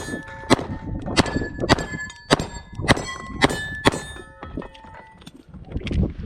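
Rapid gunfire on steel targets: sharp shots about every half second, each hit clanging and leaving the steel plates ringing. The shots thin out and stop a little before the end.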